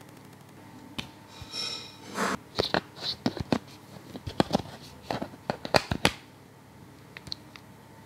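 Handling noise: an irregular string of clicks, taps and short rustles, as of a smartphone being picked up, tapped and set down, mostly between about one and six seconds in, then only room tone.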